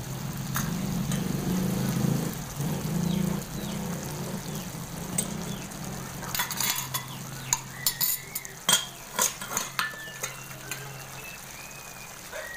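Thick chicken curry sauce simmering in an aluminium wok over a gas flame, popping and spluttering with scattered sharp clicks, most of them from about six seconds in. Under it runs a steady low hum that fades out near the end.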